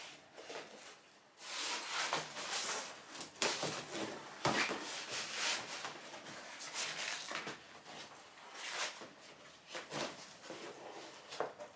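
Old vinyl covering being torn and peeled off MGB hardboard interior panels, the aged glue letting go easily. It comes as a series of irregular tearing pulls, some over a second long, with short pauses between.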